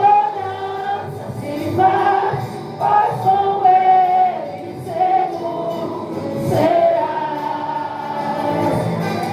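A group of young voices singing a gospel song together over musical accompaniment, with long held notes.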